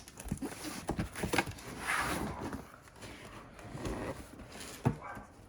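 A product box being opened and its packaging handled: scattered knocks and taps with stretches of scraping and rustling, and a sharper knock near the end.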